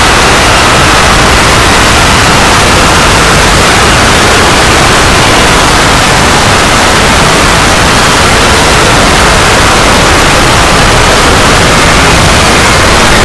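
Loud, harsh static-like noise, steady and unchanging, with no tone or rhythm in it.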